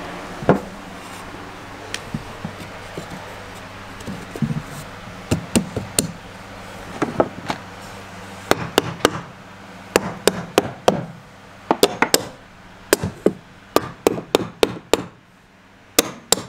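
Hammer striking a wooden blocking board fitted between floor joists: a run of uneven knocks, sparse at first and coming quicker, two or three a second, in the second half.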